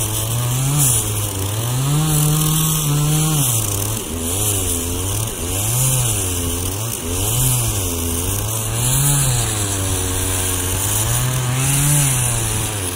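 Small boat engine of a motorized outrigger boat (bangka) running, its pitch rising and falling unevenly every second or two as the revs change.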